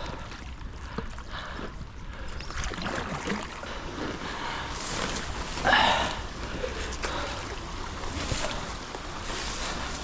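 Water sloshing and splashing around a small boat on a creek, with light knocks and one louder splash about six seconds in.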